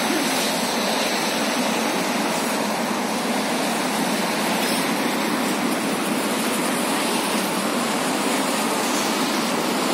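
Steady outdoor city noise, a continuous even rush like the traffic of a big avenue, with no distinct events.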